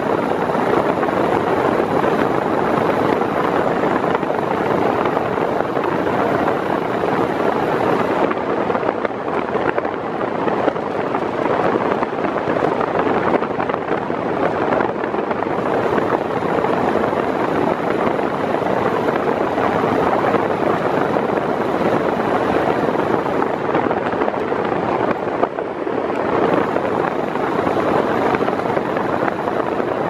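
Arno Silence Force 40 cm 126 W floor fan running at top speed, a loud, steady rush of air from its blades blowing straight at the microphone.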